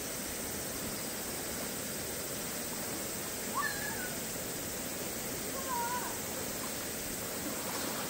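Steady rushing of a shallow, rocky mountain stream.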